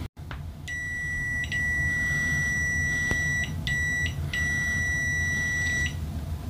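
The continuity beeper of a KAIWEETS HT-206D clamp meter sounds one steady, high, pure beep with overtones. It starts about a second in, runs for about five seconds with three short breaks, and is on the low side for loudness.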